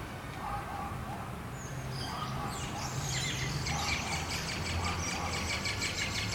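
Many small birds chirping together in a dense run of rapid, high chirps that sets in about two and a half seconds in, over a low steady hum.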